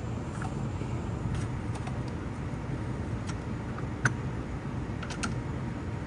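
Scattered light clicks and taps of an AC gauge hose's quick coupler being worked onto the high-side service port, the sharpest click about four seconds in, over a steady low background noise.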